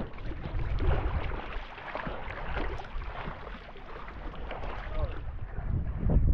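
Water splashing and sloshing close to the microphone as swimmers stroke through the lake, with the camera held at the surface. A louder slosh comes near the end.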